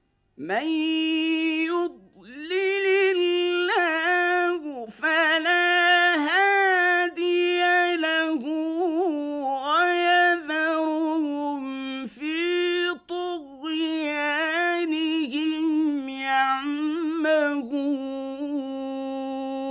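A man's solo voice chanting Quran recitation in the melodic, drawn-out mujawwad style: long held notes with quick ornamental turns in pitch, broken by a few short breaths. It comes in about half a second in and settles on a long, steady low note near the end.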